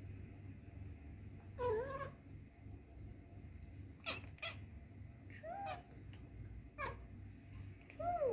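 Domestic cat meowing repeatedly: about six short meows, a couple of seconds apart, some brief and chirp-like.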